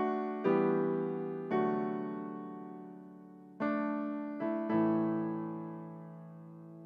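Background music of slow keyboard chords, each struck and left to fade, with a new chord every second or two.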